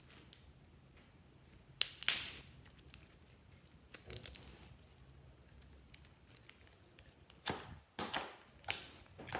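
Slime being handled by hand: a series of short, sharp crackling noises, the loudest about two seconds in and a cluster of three near the end.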